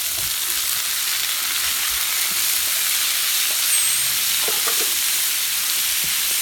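Prawns, green peas and onion sizzling steadily in hot oil in a wide, shallow metal pan, stirred with a wooden spatula.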